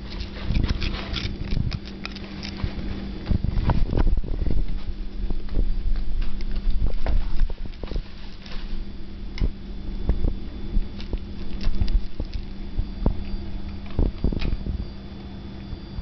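A cat crunching and chewing a potato crisp: many irregular, crackly crunches and mouth clicks.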